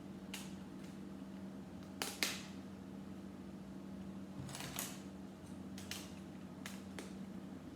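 Plastic Lego pieces clicking and tapping as they are pressed onto a model: a handful of short, sharp clicks spread out, the loudest two close together about two seconds in.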